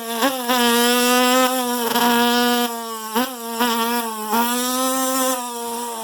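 A man's mouth imitation of a two-stroke dirt bike, a buzzing held note that dips and climbs again about four times like the bike shifting up through the gears.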